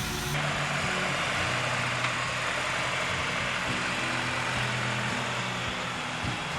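An engine running steadily, with a strong, even rushing noise over it.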